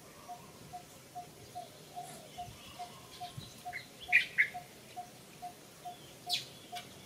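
Outdoor bird calls: a steady low note repeated about twice a second, with short high chirps about four seconds in and again near the end.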